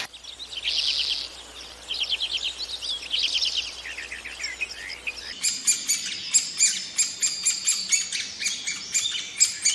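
Small birds calling in quick trilled chirps. About five seconds in the sound switches to a denser run of sharp, rapid chirps.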